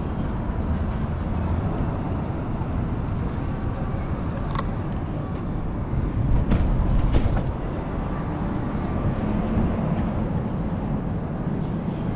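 Steady low rumble of wind and road noise from a bicycle ride on city streets, swelling louder for a moment about six to seven seconds in.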